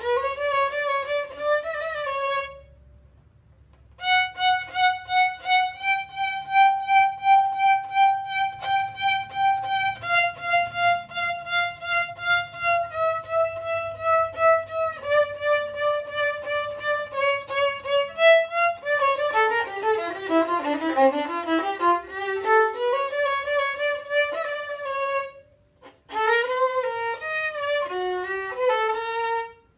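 Solo violin bowed: a rising phrase, a brief pause about three seconds in, then many quick repeated bow strokes on held notes that step downward. Around the middle it plays a quick run that dips low and climbs back, followed by short phrases after another brief break near the end.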